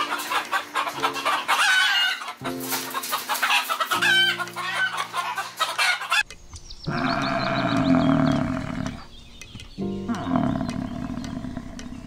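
Chickens clucking over background music with held notes, then two long rooster crows in the second half.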